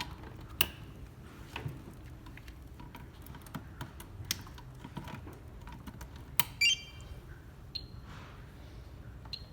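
Scattered clicks and taps of a Fluke cable tester being handled and a Cat6 cable's RJ45 plug being seated, while a cable test runs. About six and a half seconds in comes a cluster of sharp clicks with short high tones, and later two brief high beeps.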